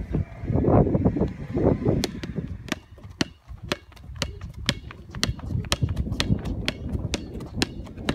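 Sharp, irregular slaps on asphalt, a few a second, from running footsteps and a basketball bouncing on the road, over a low rumble.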